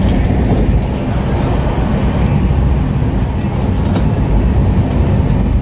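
Steady rumbling and rushing of an LHB passenger coach running at speed, heard from inside the air-conditioned chair car, with wheel-on-rail noise and no distinct rail-joint clicks.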